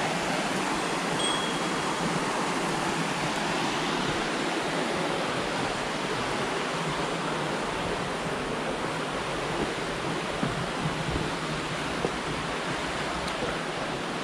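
Steady rush of water pouring from a canal lock's overflow into the canal.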